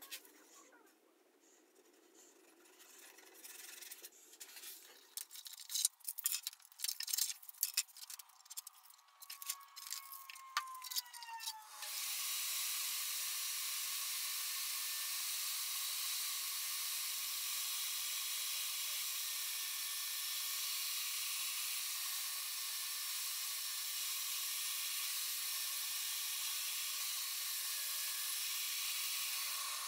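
Light rubbing, then scattered clicks and knocks of wood being handled; about twelve seconds in, a portable table saw starts suddenly and runs steadily at an even level while a stave-built wooden pot is held over its blade.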